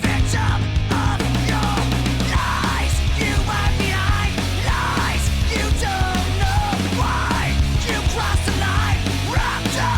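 Loud rock music with a heavy, steady low end and a driving beat.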